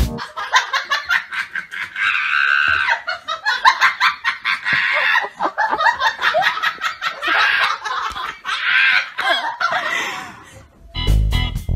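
A person laughing hard, in long runs of rapid bursts with short breaks between them.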